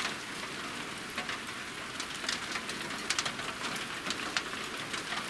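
Small, soft hail pellets falling hard, heard as a steady hiss dotted with many sharp ticks of single pellets striking.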